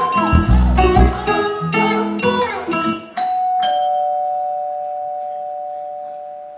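Song music that stops abruptly about three seconds in, followed by a two-note ding-dong doorbell chime, a higher note then a lower one, ringing out and slowly fading.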